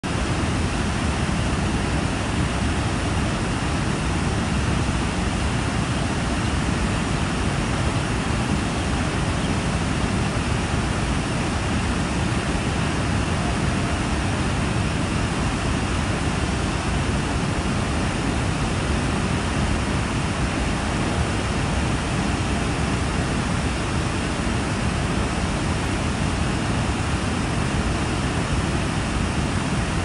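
The American Falls at Niagara: a steady, unbroken rush of water plunging over the falls.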